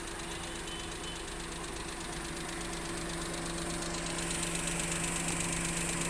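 A freshly overhauled Maruti 800's three-cylinder petrol engine idling steadily. It grows a little louder about four seconds in.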